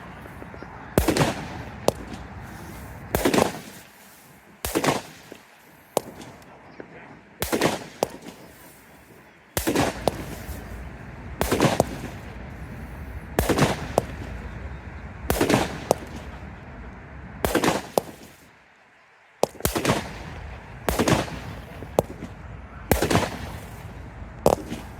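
Brothers Pyrotechnics 'Lightning Strike' firework firing a string of sharp bangs, around fifteen shots at about one every one and a half seconds.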